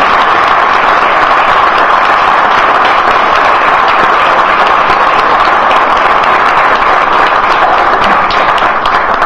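Audience applauding steadily, fading out at the very end.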